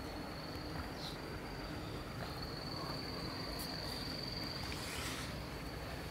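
A cricket trilling steadily at a high pitch, breaking off for about a second near the start, over a low steady background hum. A brief rustle comes near the end.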